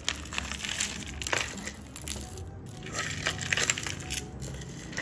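Costume jewellery being handled and sorted: beads and small metal pieces clicking, clinking and rattling against each other, in irregular clusters with rustling between.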